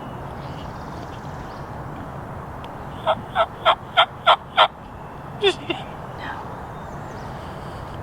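Wild turkey calling: a run of six evenly spaced yelps, about three a second, then one more note that drops in pitch.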